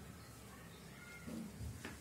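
Faint handling sounds of a small precision screwdriver tightening the platter clamp screw of an opened laptop hard disk, with light knocks and a sharp little click near the end.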